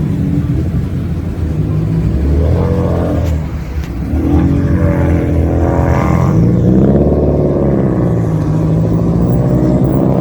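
A modified car's engine running with a steady deep exhaust drone, revving up and back down a few seconds in.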